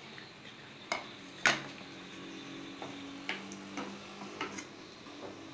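Wooden spatula stirring thick gravy in a steel pan and knocking against the pan, a few sharp clanks, the loudest about a second and a half in. A few lighter clinks of dishes follow.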